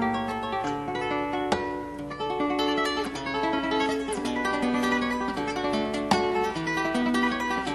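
Background music of a plucked acoustic guitar playing a run of notes.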